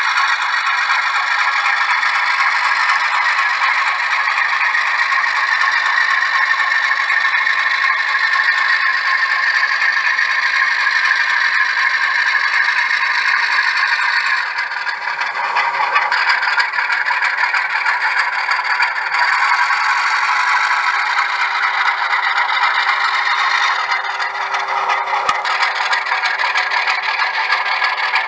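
Model railroad train running on its track: a continuous rattle and scrape of the model's wheels on the rails, with a faint steady hum under it.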